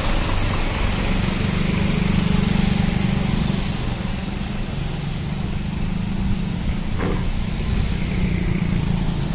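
A coach bus's diesel engine running steadily as the bus pulls away, mixed with motorbikes riding past. There is one sharp click about seven seconds in.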